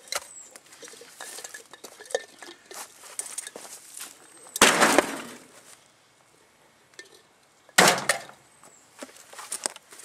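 A heavy water pump slammed down twice, about three seconds apart, onto a gutted metal microwave casing, with smaller clinks and rattles of loose metal and shattered door glass before and after.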